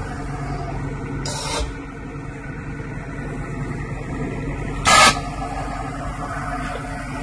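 Egg tray forming machine running with a steady hum and two short hisses, a fainter one about a second and a half in and a louder one about five seconds in.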